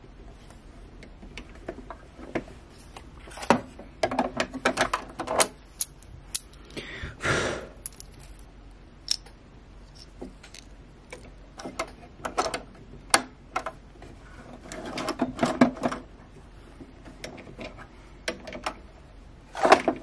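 Small clicks and metallic rattles of hands threading a sewing machine and fitting its metal bobbin case, in irregular clusters, with a brief swish about seven seconds in.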